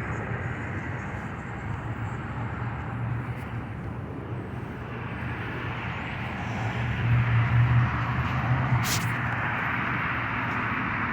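Urban outdoor ambience of steady traffic noise with a low hum, swelling louder for a couple of seconds past the middle, with a single sharp click near the end.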